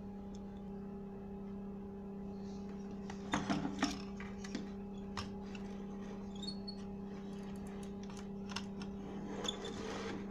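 Light clicks and ticks from a CRT television's wiring and circuit boards being handled, a small cluster about three and a half seconds in and scattered ones after, over a steady low hum.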